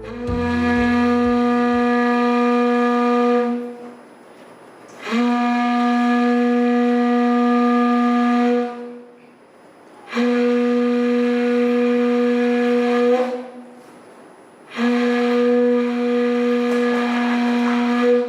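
A horn blown in four long, steady notes of about three to four seconds each, with short pauses between them. Each note scoops up slightly in pitch at its start.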